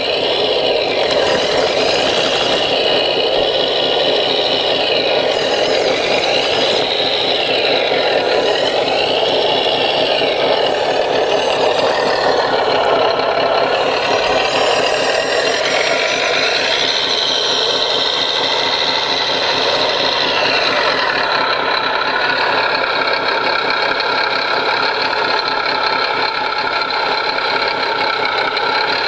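RC scale CAT 963D track loader driving and working its bucket. Its electric drive and gears whine, rising and falling in pitch as it speeds up and slows, over a steady rattling diesel engine sound from a model sound module.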